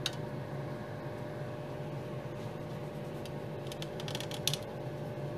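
Nail dust collector's fan humming steadily. There is a sharp click at the start and a quick run of light ticks and scratches about four seconds in, as the applicator works chrome pigment onto a nail tip.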